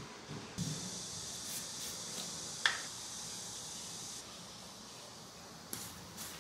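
A metal teaspoon clinks once against a stainless steel mixing bowl while baking powder is spooned in, over a soft steady hiss that lasts about three and a half seconds. A few small clicks follow near the end.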